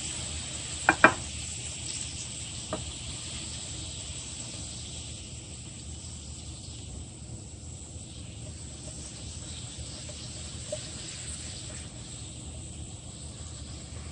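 A metal pot clinks against a glass baking dish twice about a second in, and more lightly once near three seconds, while hot garlic butter sauce is poured from it over seafood. Under it runs a faint steady hiss with a thin high whine that slowly fades.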